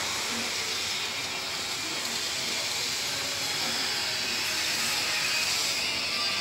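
Steady hissing noise with no clear pitch or rhythm, strongest in the upper range and getting a little louder near the end.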